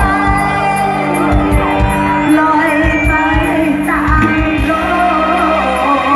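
Live Isan mor lam band playing amplified music, with a woman singing over held notes and a drum beat.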